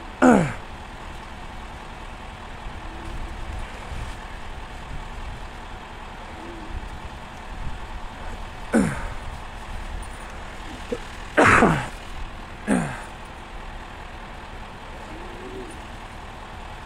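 An emergency vehicle's engine idling steadily, with four short, sharp sounds that drop quickly in pitch: one at the start, then three between about 9 and 13 seconds in, the loudest near the middle of that group.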